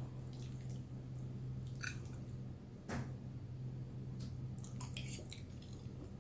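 A person chewing a mouthful of beefaroni pasta bake, with a few faint clicks over a steady low hum.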